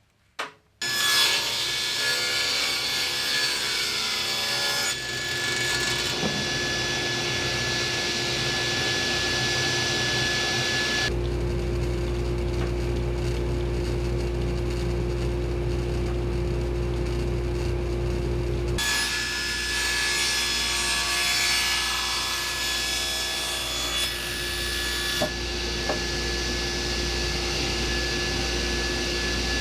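Table saw starting up about a second in and running steadily with a constant motor whine, its blade cutting plywood panels in several passes.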